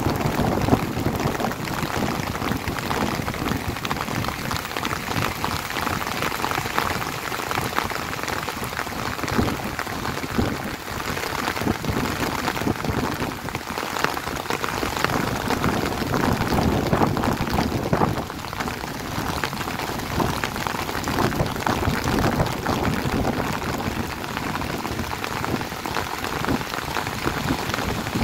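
Heavy rain falling steadily: a dense, even patter of drops striking close by.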